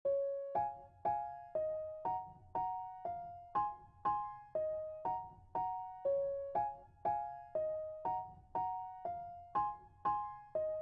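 Background music: a gentle piano or electric-piano tune, struck chords about twice a second, each note fading before the next.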